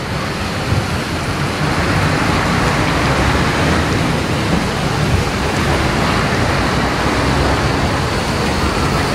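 Steady city traffic noise as a Zurich Cobra low-floor tram rolls toward the listener along the street tracks.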